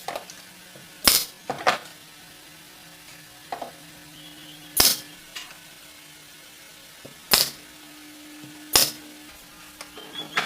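Sharp knocks of tools on wood: about six loud strikes at irregular gaps of a second or two, with smaller taps between, over a faint steady hum.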